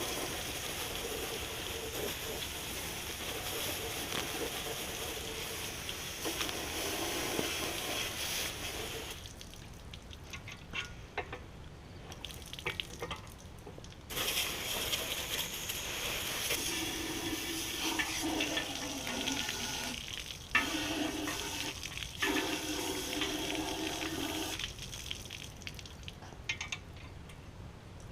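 Sponge and soapy water scrubbing inside the cast-iron cylinder bores of a Ford FE V8 engine block, with water sloshing and splashing. The scrubbing stops for a few seconds about a third of the way in and again near the end.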